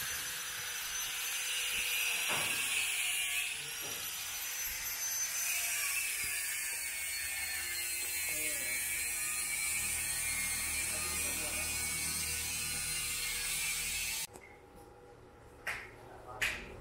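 A power tool running with a steady high whine and hiss, its pitch sagging a little about five seconds in, that cuts off abruptly near the end. A few sharp clicks follow it.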